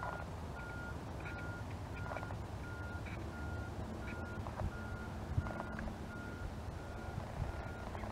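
A vehicle's reversing alarm beeping steadily, about one and a half evenly spaced beeps a second at one pitch, over a low rumble.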